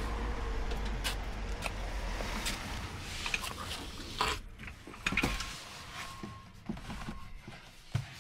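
Getting into a Tesla: door and handling clicks and knocks over a low outdoor rumble, then a thud about five seconds in as the door shuts. After that the low rumble is gone and only a few small clicks are heard inside the closed cabin.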